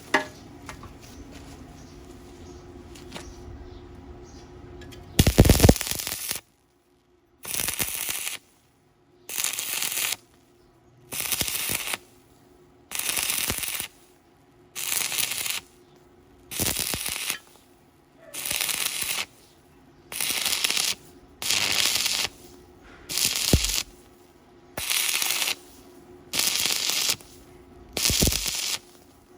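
Stick welding arc crackling in a series of short, evenly spaced bursts about a second long, with the arc breaking off between them, starting about five seconds in. This is stop-start welding on square iron tubing.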